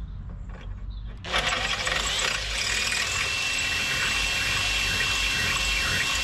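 Makita cordless drill running at speed, drilling a hole up through a mounting bracket into the underside of a van's rear bumper. It starts about a second in and runs steadily with a high motor whine.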